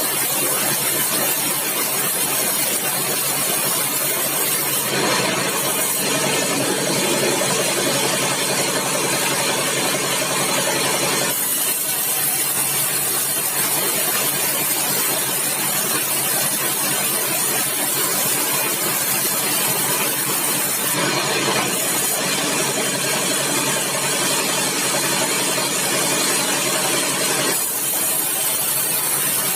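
Engine-driven sawmill running steadily. Twice, for about six seconds each, the sound grows fuller and louder as the saw works through a bengkirai log.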